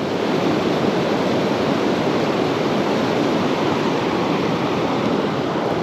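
Creek water rushing steadily through a gorge.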